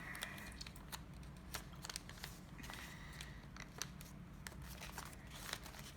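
Faint crinkling and small ticks of origami paper being pinched and shaped by hand, scattered irregularly.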